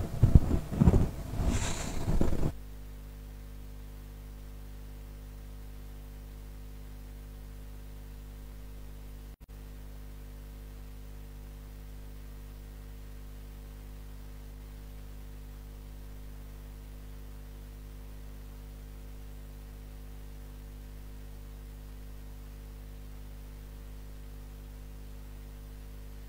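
A brief loud burst of sound in the first couple of seconds, then a steady electrical mains hum with its overtones over dead air on the broadcast feed, with a momentary dropout about nine seconds in.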